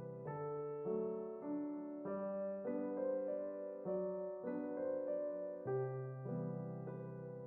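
Background music: a gentle, tender piano-like keyboard melody, notes changing about every half second.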